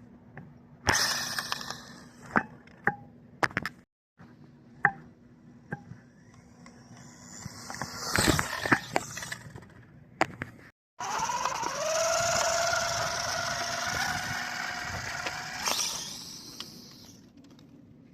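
Dual 130 brushed electric motors of a small RC drag car whining on launch runs. There is a short burst about a second in, scattered clicks and knocks, and another burst around eight seconds. A steady high whine with hiss then holds for about five seconds and fades out near the end.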